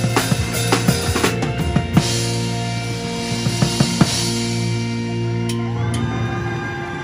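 Drum kit played over pitched backing music: quick fills of snare, toms and bass drum with crash cymbal hits up to about four seconds in, then the drumming stops and a held chord of the backing music rings out and fades as the song ends.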